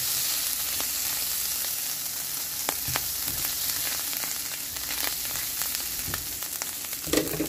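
Onion, garlic and ginger-garlic paste with turmeric sizzling in a little hot oil in a nonstick pan, a steady hiss. Scattered light ticks come from a silicone spatula stirring the spice mixture.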